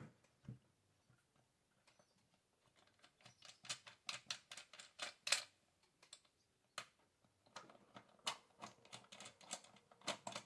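Faint, irregular small clicks and rattles of hands working on a Stihl MS 462 chainsaw's sprocket cover and its nuts, coming in two busier runs.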